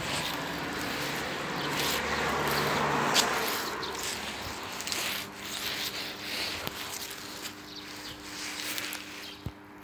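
Footsteps scuffing on concrete paving, mixed with rubbing noise from a handheld camera being moved about while walking; the rubbing is loudest in the first few seconds.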